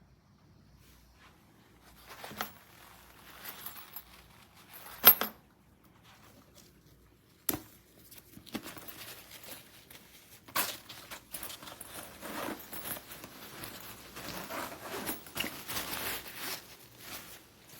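Handling noises: rustling and scraping with several sharp knocks and clicks. The loudest knock comes about five seconds in, and the rustling grows busier in the second half.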